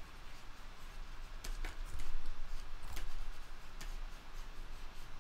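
Sparse, faint clicks and light taps from a computer input device during sculpting, over a low steady hum.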